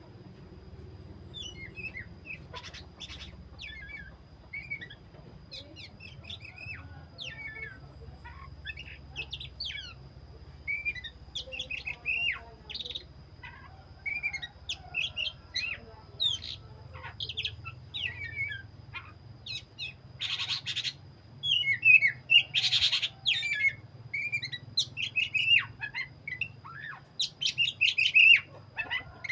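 Black-breasted oriental magpie-robin (kacer dada hitam) singing energetically: a long run of varied, quick whistled and chirping phrases, louder in the second half, with two short harsh rasping notes about two-thirds of the way in.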